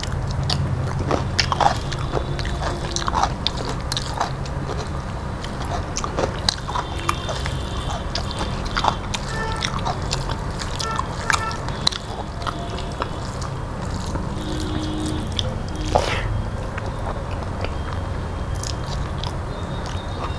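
Close-miked chewing and mouth sounds of a person eating rice and dal with his hand: many short wet smacks and clicks, with a bite into a cucumber slice at the start, over a steady low hum.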